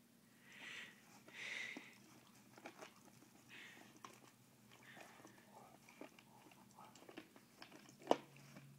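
Dogs gnawing on a large chew bone, teeth scraping and clicking on it at an irregular pace, with two short louder hiss-like sounds about a second in and a sharp knock near the end.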